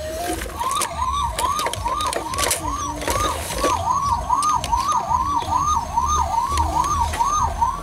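Toy fire truck's electronic siren wailing in quick rising sweeps, about three a second, starting about half a second in, with a few light knocks from the toy being handled.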